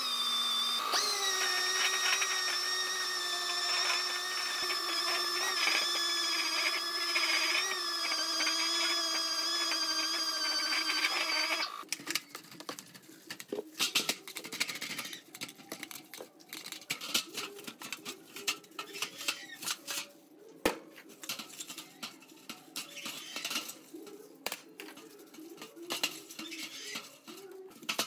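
A power sanding disc running with a steady whine as it sands the steel ring of a fan housing; about twelve seconds in it cuts off suddenly. After that, a bristle brush scrubs a small metal part in a metal tray of cleaning liquid, with light scratches and clicks.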